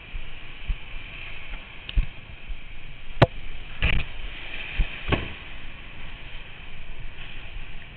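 Wind buffeting the microphone of a camera mounted on a windsurf board, with water rushing under the hull. Several sharp knocks as the board slaps through the chop, the loudest about three seconds in.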